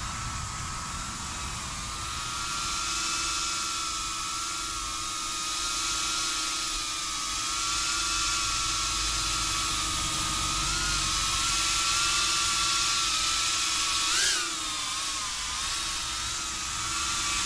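Flywoo Flylens 85 FPV drone flying on four-bladed Gemfan Hulkie props: a steady whine of motors and props that wavers gently in pitch as it manoeuvres. A few seconds before the end a brief burst of throttle sends the pitch up and back down.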